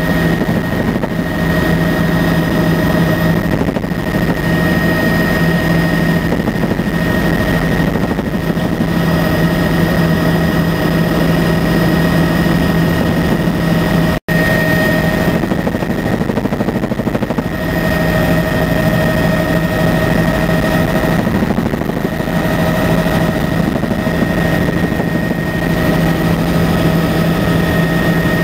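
Helicopter in flight: a steady, loud drone of rotor and engine with a constant whine above it. The sound cuts out for an instant about halfway through.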